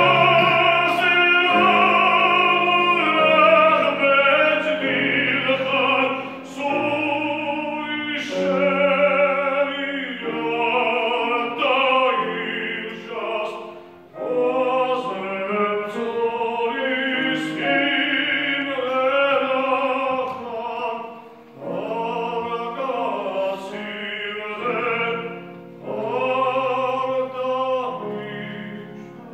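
A male classical singer singing an art song in operatic style with a grand piano accompanying. His voice has wide vibrato, in phrases broken by short pauses for breath.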